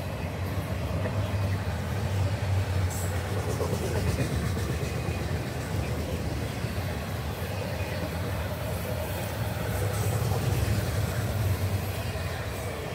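Florida East Coast freight train's autorack cars rolling past at speed: a steady wheel-on-rail rumble with occasional clicks of wheels over rail joints.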